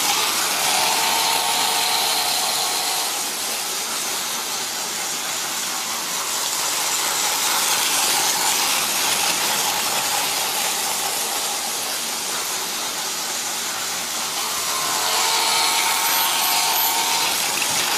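Tomy Plarail D51 toy steam locomotive running on its plastic track: a steady hissing buzz from the battery motor and gearing, with a whining tone that swells louder twice, about a second in and again near the end.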